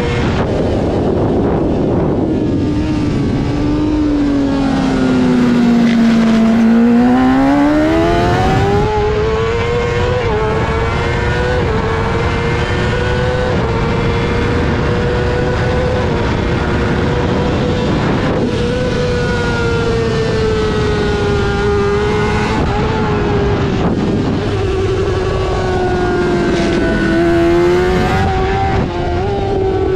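Honda CBR600 inline-four engine revving high over a steady rushing noise. Its pitch sinks a few seconds in as the bike slows, climbs back up about eight seconds in, then holds a high, fairly steady note with brief small dips.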